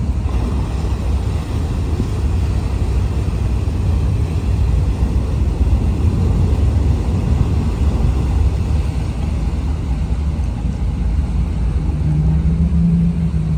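Diesel engine of a Bosphorus passenger ferry working close by as it manoeuvres, a deep steady rumble with its propeller churning the water. A short low steady tone sounds near the end.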